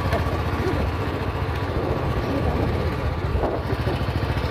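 Motorcycle engine running steadily at low speed, a dense even pulse, heard from on the bike while riding.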